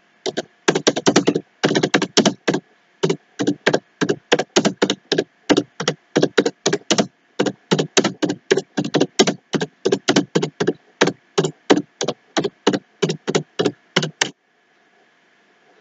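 Computer keyboard keys being typed one at a time, about three sharp clicks a second, stopping shortly before the end.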